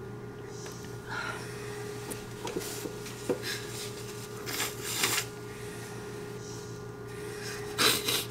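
Short scratchy rustles in loose wood-shaving bedding in a hamster tank, a few separate bouts with the loudest near the end, over a steady low hum.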